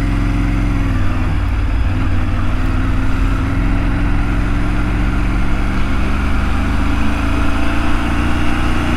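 Triumph Tiger motorcycle's three-cylinder engine pulling away at low speed. Its pitch dips about a second in, then rises gradually as the bike gathers speed.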